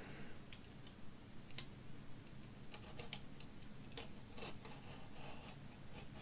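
Utility knife blade slicing the tape seal along the edge of a cardboard kit box. Faint scattered clicks and short scraping strokes as the box is handled and cut.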